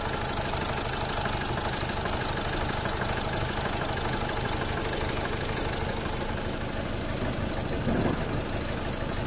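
Ford C-Max 1.6 TDCi four-cylinder common-rail diesel idling with a steady, even clatter. Its pilot injection drops out from time to time on the injectors being tested, and the idle is hunting. A brief low bump about eight seconds in.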